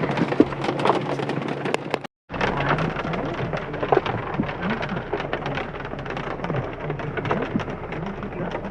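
Heavy rain with big drops falling, many landing close by as sharp ticks. The sound cuts out completely for a moment about two seconds in.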